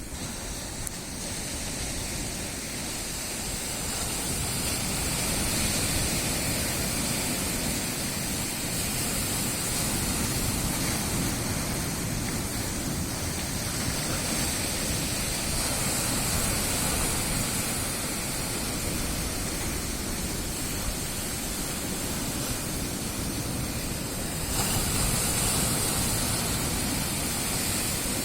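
Sea waves breaking on the shore: a continuous rush of surf that swells and eases every few seconds, with a louder surge near the end.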